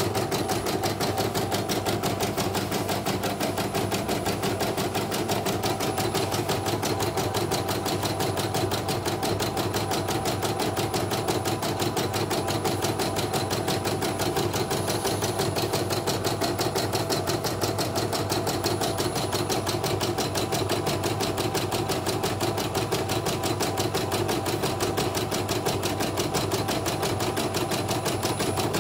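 CNY portable computerized embroidery machine stitching steadily at an even, rapid rate, needle and hoop drive clicking in a constant rhythm as it runs a test design after servicing.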